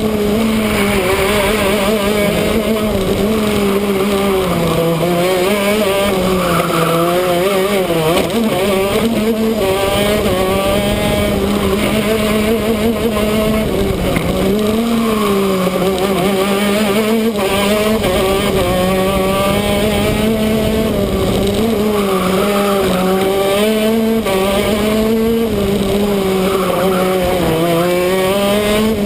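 Two-stroke shifter kart engine running at high revs through a lap, heard from the front of the kart, its pitch dipping and climbing back up every few seconds through the corners.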